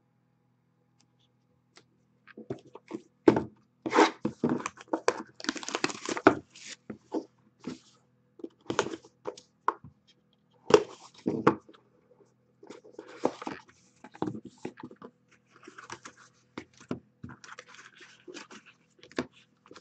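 A cardboard trading-card box being handled, cut open and unpacked, starting about two seconds in: irregular knocks, clicks, scrapes and tearing of cardboard and packaging, with the rustle of a foam insert near the end.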